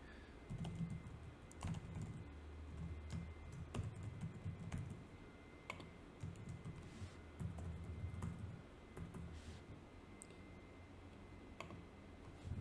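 Faint computer keyboard typing: scattered, irregular keystrokes.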